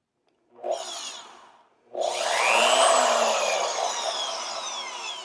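FEIN magnetic drill's electric motor being test-run: a short blip about half a second in, then switched on again about two seconds in, whining and winding down slowly as it coasts to a stop.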